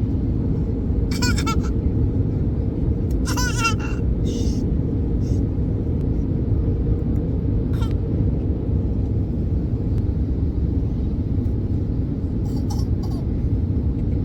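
Steady low drone of an airliner cabin in flight: engine and airflow noise heard from a passenger seat, unchanging throughout.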